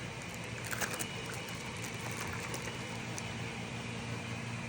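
Steady low hum with a few faint clicks about a second in, as of the speaker parts being handled.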